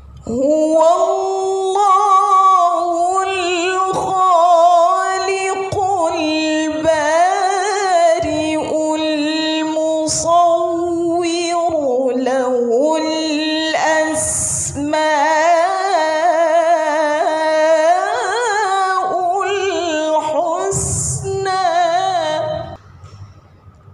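A woman reciting the Qur'an in the melodic tilawah style, drawing out long phrases with wavering, melismatic ornaments of the maqam. There are brief breaks about 14 and 21 seconds in, and the phrase ends shortly before the close.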